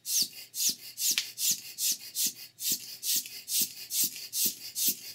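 Short puffs of breath, a little over two a second, blown at a disposable vape's airflow switch, with a faint whistle falling in pitch in some puffs. The puffs trigger the switch, which lights its LED and powers the heater coil.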